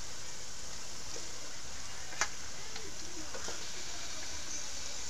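Chicken pieces sizzling in oil and fried spice paste in a steel wok, with a steady hiss. A metal spatula knocks sharply against the wok once about two seconds in, with a few lighter scrapes a little later.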